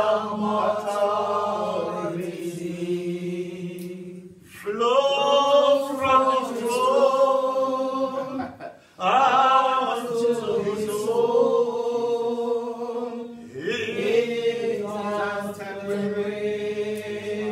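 A man singing a slow worship song into a microphone through a PA, in four long drawn-out phrases of held notes, each about four seconds, with short breaks between them.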